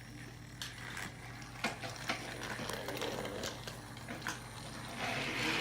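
Battery-powered TrackMaster toy train running on plastic track: a steady small-motor whir with scattered clicks and knocks of plastic.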